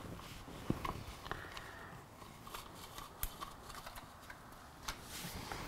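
Faint, scattered clicks and taps of bolts and hand tools being handled while a case saver is fitted to a motorcycle's engine cover.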